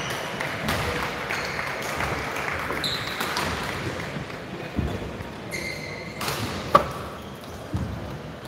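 Sports-hall ambience: a few short squeaks of court shoes on the wooden floor, footsteps and faint background chatter, with one sharp knock about seven seconds in.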